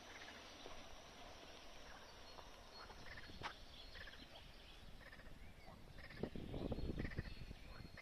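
Faint outdoor ambience: short bird chirps over a low steady rumble, with louder rough, irregular rumbling in the last two seconds.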